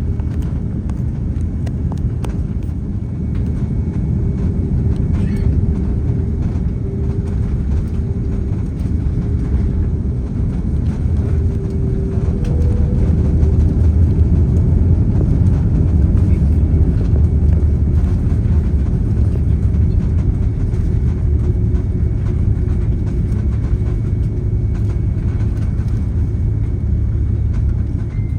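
Cabin noise inside an Airbus A330-300 airliner: a steady low rumble of the engines and airframe with a steady whine over it, growing louder about halfway through.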